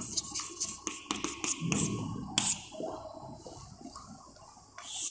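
Chalk tapping and scratching on a blackboard as a line of writing goes up, a quick run of short ticks at first, then softer strokes and a brief louder scrape near the end.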